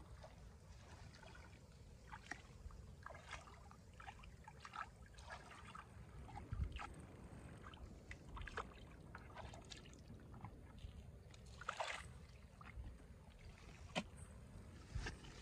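Hands groping and sloshing through shallow muddy pond water: irregular small splashes and wet squelches, with a single sharp tap near the end.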